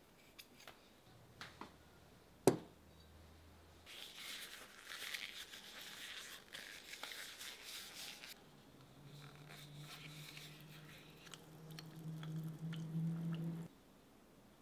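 Knife skiving leather on a stone slab: a sharp tap, then a few seconds of dry scraping as the blade pares the edge. After that, a low steady hum grows louder and then cuts off suddenly near the end.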